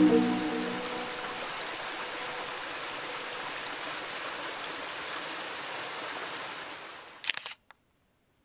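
Background piano music fades out in the first second. A steady outdoor hiss like running water follows and fades away near the end. Then comes a quick burst of camera shutter clicks and one last click.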